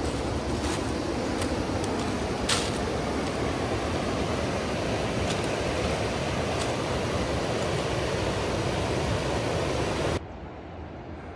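Steady rush of whitewater rapids on a wide river, with a few faint clicks. It cuts off abruptly about ten seconds in.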